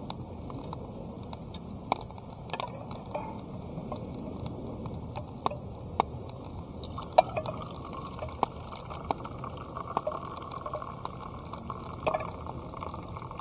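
Hot sake being poured, with a light, steady filling sound from about halfway in and scattered small clinks and knocks of the vessels.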